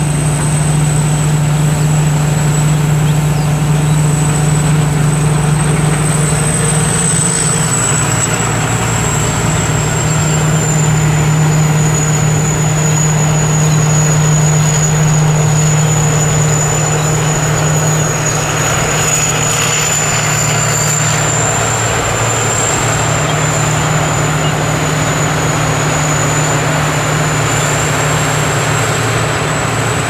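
Sakpattana KM-D 4.1 rice combine harvester at work: its 225 hp turbocharged engine drones steadily under the clatter and rush of the cutting and threshing gear, with a constant thin high whine.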